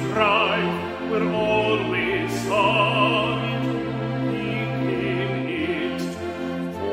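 Operatic ensemble singing: several voices layered, with vibrato on the held notes and sustained low notes beneath.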